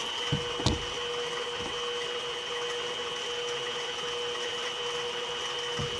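Steady electrical hum with a continuous high whine from the powered-up but idle CNC mini mill setup, with a couple of light clicks in the first second.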